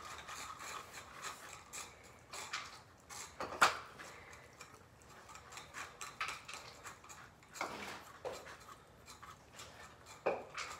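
Scattered light clinks, taps and scrapes of a utensil against dishes as cat food is portioned into bowls, with a sharper knock about three and a half seconds in.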